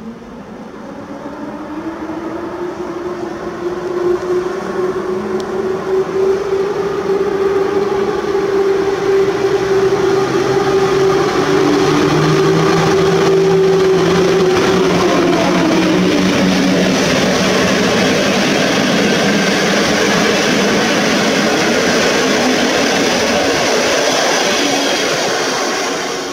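EP07 electric locomotive and its passenger carriages gathering speed past on the track. A motor hum rises in pitch over the first few seconds and drops in pitch about halfway through as the locomotive goes by. The steady noise of the carriages rolling past follows, fading near the end.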